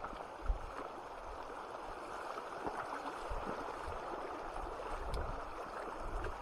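Shallow river water running over a gravel bed, a steady rush, with a few dull bumps, the loudest about half a second in.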